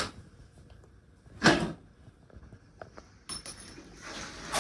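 Handling noises from the plastic casing and parts of a radio-cassette CD player being taken apart. There is a short scrape about a second and a half in, then small clicks and rustling that build toward the end.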